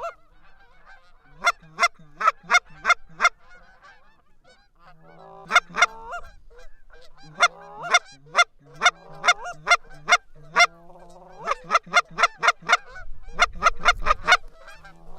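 Geese honking and clucking in quick, loud runs of short notes, the calling of a goose hunt as a pair of geese is worked in to land.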